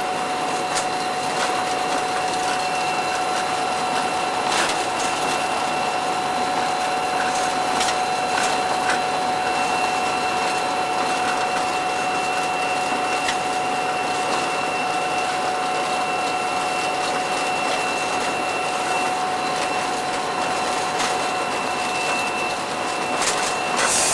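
Steady cab noise of an EMD SD40-2 diesel-electric locomotive working under load, its 16-cylinder two-stroke engine running with a steady high whine over it and a few faint clicks.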